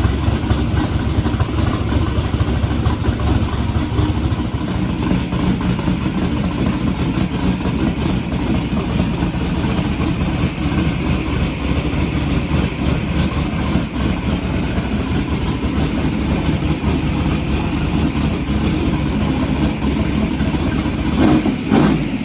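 Twin-turbo small-block Ford V8 running at a choppy, lumpy idle, with a brief louder rev near the end.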